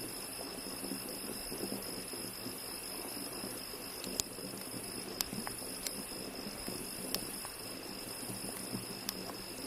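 Insects trilling steadily in a high, continuous tone, with a pulsing higher hiss above it. Several sharp clicks come in the second half.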